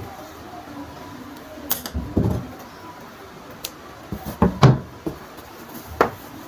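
Cloth being handled on a table: rustling of the fabric and a few sharp knocks and bumps, the loudest a little under five seconds in, as the thread is pulled to gather the fabric.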